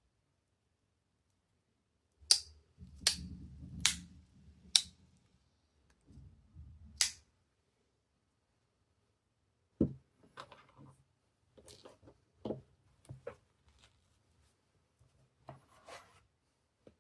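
Sharp metallic clicks of a Victorinox Spartan Swiss Army knife's blades and tools snapping shut against their springs: five loud snaps in the first seven seconds, then a run of lighter clicks and knocks.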